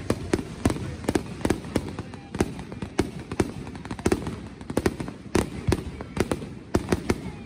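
Fireworks display: a rapid, irregular run of sharp bangs and pops, several a second, from aerial shells bursting overhead.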